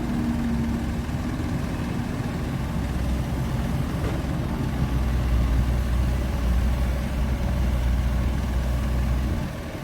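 Heavy diesel engine running steadily with a low rumble, growing louder about halfway through and easing just before the end.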